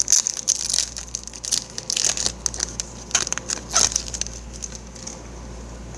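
Crinkling and crumpling of a foil trading-card booster pack wrapper being handled, with a rapid irregular crackle that stops about five seconds in.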